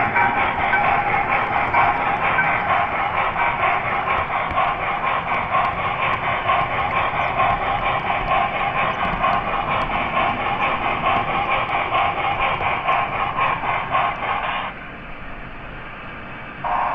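Model ES44AC locomotive pulling a train of model grain hopper cars, running close by on the layout's track: a steady clatter and hum of wheels and motor that drops away sharply about fifteen seconds in.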